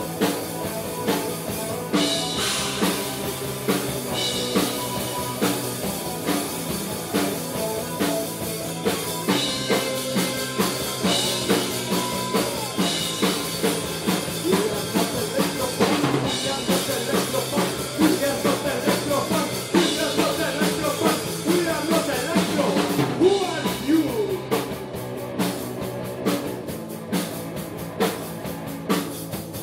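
Live punk rock band playing loud: electric guitars and a drum kit with a driving beat. Near the end the pitched instruments drop back and it thins to mostly drums.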